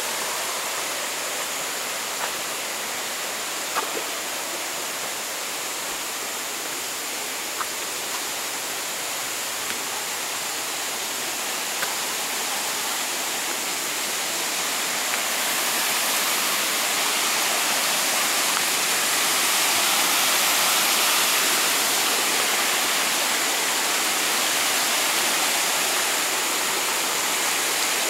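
Steady rush of water from a rocky stream and its small cascades, growing louder from about halfway through. A few faint clicks are heard in the first half.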